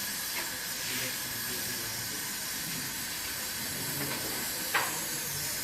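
Brazing torch flame hissing steadily while the refrigerator capillary tube is brazed into the strainer, with one short sharp metallic click near the end.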